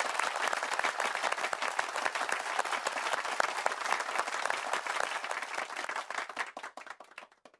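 Crowd applause: dense clapping that thins out and dies away over the last second or two.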